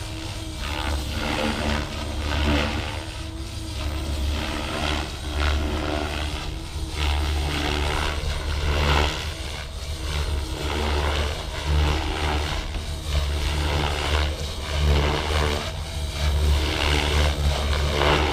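Blade Fusion 550 electric RC helicopter in flight, its main rotor and 1350kv brushless motor swelling and fading every second or two as it is pushed through hard aerobatic manoeuvres.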